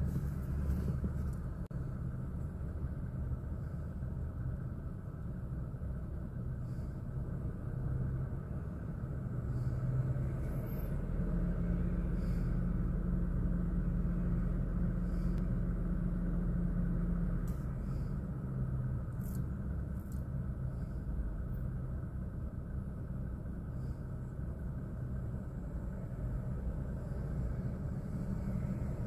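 Steady low rumble of a car's idling engine, heard inside the cabin of the stopped car, with traffic passing outside. A steadier, slightly louder hum rises for several seconds in the middle, then eases back.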